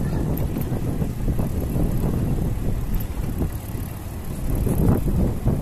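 Wind buffeting the microphone of a moving bicycle, a loud, uneven low rumble, as the bike rolls along a concrete street.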